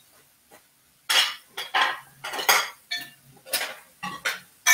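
Kitchen knife knocking and scraping on a cutting board while handling chopped onion, about eight strokes at an uneven pace starting about a second in.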